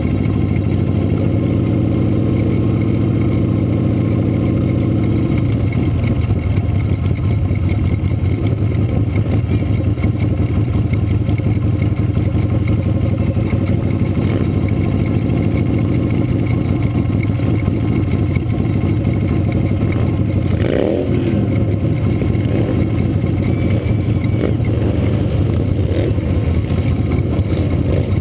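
Motorcycle engine running steadily, heard through a camera mounted on the bike, with a higher engine note for the first few seconds.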